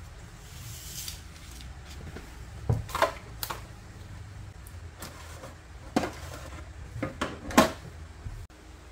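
Ceramic flowerpots knocked and set down on a granite countertop while it is wiped with a cloth: a brushing swish about a second in, then several sharp clacks, three close together near the end, the last the loudest. A low steady hum underneath.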